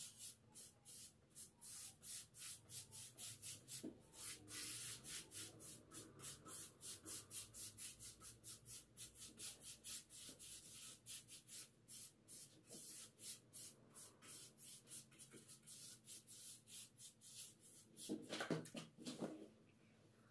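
Paintbrush brushing paint onto a stair handrail: quick, faint, scratchy back-and-forth strokes, about four a second. A brief louder sound comes near the end.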